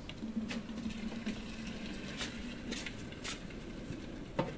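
Fresh milk being poured from an aluminium bucket into an aluminium milk can, with several light clinks of the metal and a knock near the end.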